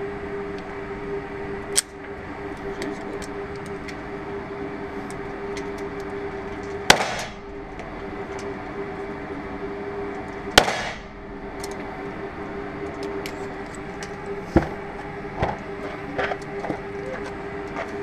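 Two 9 mm pistol shots from a SIG P210, about four seconds apart, each followed by a short echo in the indoor range, over a steady hum. A few lighter sharp clicks and knocks fall before and after them.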